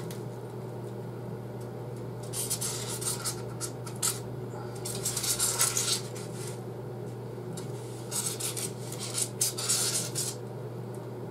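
Marker tip scratching across the rough, putty-coated foam of a pillar in several runs of drawing strokes, over a steady low hum.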